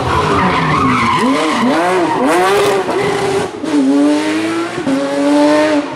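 Porsche 911 rally car's flat-six engine through a tight bend: a tyre squeal in the first second, then the revs rising and falling about five times on and off the throttle, before a long steady pull as the car accelerates away.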